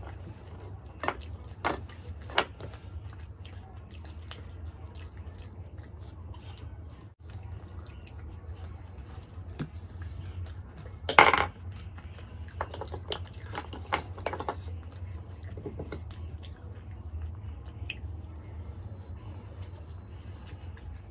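Eating sounds of methi paratha and aloo sabzi being eaten by hand from steel plates: scattered chewing and short clicks of fingers and food on the plates over a steady low hum. The loudest is a short sharp noise about eleven seconds in.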